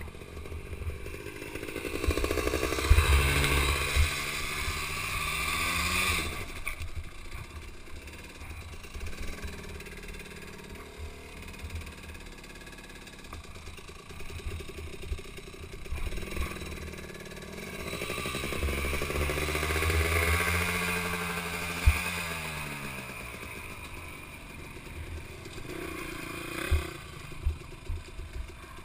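Dirt bike engine running after a crash, revved up and back down twice with lower running in between, with scattered knocks and clatter.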